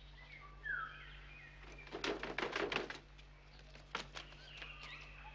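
Birds chirping in the background, with a quick run of footsteps knocking on wooden stairs about two seconds in and a single knock about a second later.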